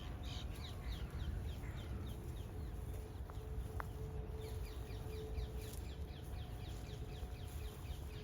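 Open-air ambience with a low wind rumble on the microphone and a bird giving many quick, short falling chirps, several a second, over a faint steady drone.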